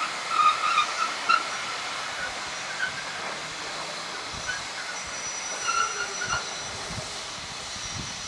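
Steam train of GWR 7802 at the station: a steady hiss of steam, with short squealing tones from the wheels in the first second or so and again later, the sound slowly fading.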